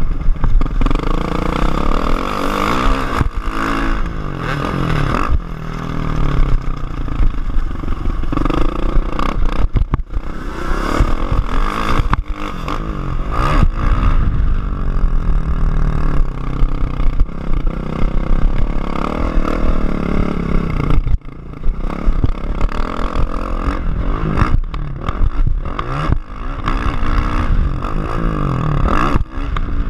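Kawasaki KX450F single-cylinder four-stroke motocross engine under hard riding, its pitch rising and falling again and again as it revs up, shifts and backs off. Frequent knocks and clatter from the bike run through it.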